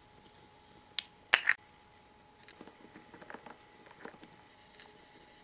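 Miniature replica curry insert snapping into a tiny toy cooking pot: a click, then a sharp short clatter as it seats, followed by a string of faint light taps and clicks as a tiny ladle is set in the pot.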